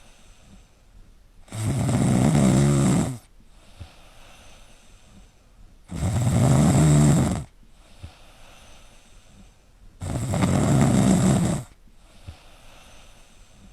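A sleeping dog snoring: three long snores, each about a second and a half, coming about every four seconds, with much quieter stretches between.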